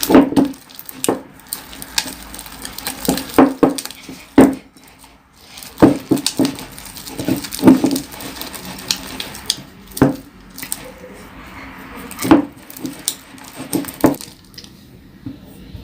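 Toothpaste slime being stirred in a pot after drops of activator: the stirring utensil knocks and scrapes against the pot in irregular sharp clicks.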